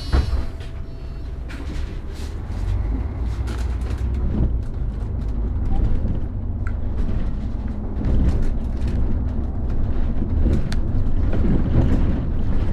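City bus heard from inside the cabin, driving along: a steady low engine and road rumble with rattles, getting louder about two seconds in and again near the middle as it picks up speed. A sharp knock right at the start.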